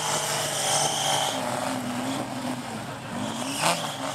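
Ford-engined dune buggy running under load as it climbs a steep sand slope, the engine's pitch rising and falling with the throttle. A sudden sharp noise about three and a half seconds in.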